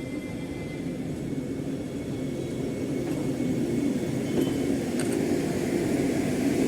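Vande Bharat Express electric trainset running on the rails, a steady low rumble that grows louder as it moves.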